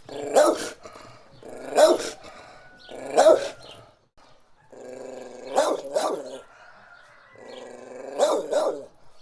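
A dog barking: three single barks about a second and a half apart, then two longer stretches of low growling, each broken by a quick double bark.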